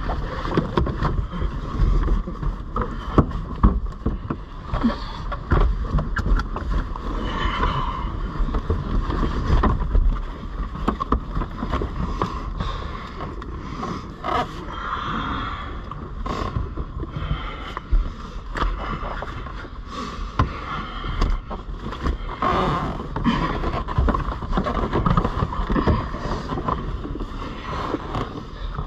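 Two people grappling in a car's front seats: bodies and clothing scuffling, rubbing and bumping against the seats, seat belts and door, heard close up from inside the car's cabin, with many irregular knocks and scrapes.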